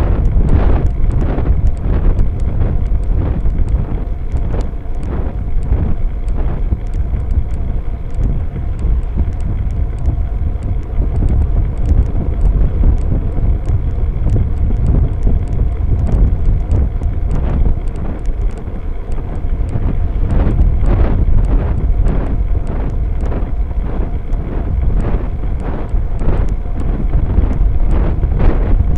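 Wind buffeting the microphone of a bicycle-mounted Cycliq Fly6 rear camera light while riding, a steady deep rumble with frequent small clicks and knocks from the ride over the road.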